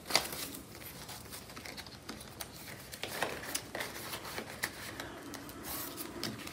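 Paper bills and crinkly plastic cash envelopes in a ring binder being handled: soft rustling with scattered light clicks and taps, and a sharper click just after the start.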